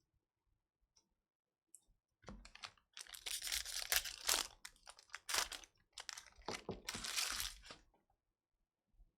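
Trading card packs being torn open by hand, the foil wrappers ripping and crinkling in several loud rasping tears over about six seconds, starting about two seconds in.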